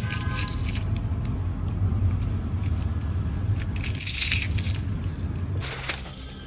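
Syrup-soaked jalebi squeezed and crushed between fingers: sticky, wet squishing and crunching, loudest about four seconds in, over a steady low hum.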